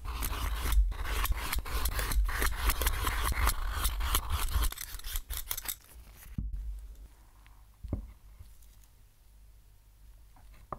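Raw sweet potato being peeled: rapid, continuous scraping strokes of a blade across the skin, close to the microphone. After a break about two-thirds of the way in, it goes much quieter, with light handling and a single knock.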